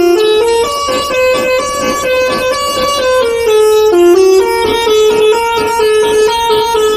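A bus's multi-tone 'telolet' air horn playing a tune: a quick run of held notes that step up and down in pitch.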